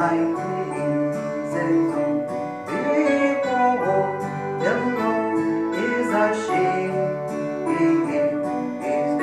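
Music: acoustic guitar strumming chords in a steady rhythm.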